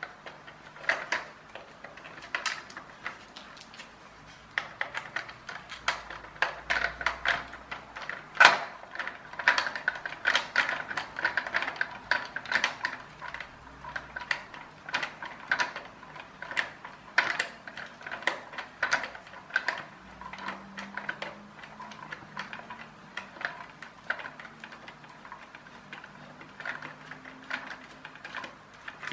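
Small electric screwdriver backing screws out of a plastic toy car chassis: a faint motor hum under many irregular sharp clicks and ticks of the bit, screws and plastic.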